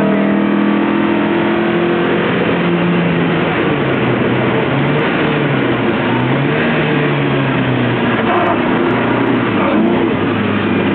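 Lotus Elise four-cylinder engine driven hard on track, its note dropping as the car slows, rising and falling through the middle, then climbing again near the end, over a loud steady rush of wind and road noise.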